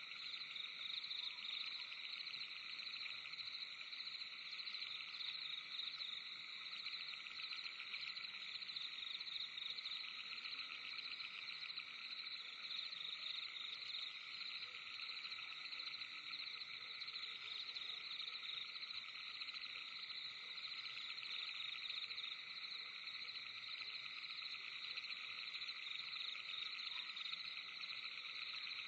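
Dense night chorus of calling insects: many overlapping fast trills blend into a steady, unbroken high-pitched drone, with a fainter lower trilling band beneath it.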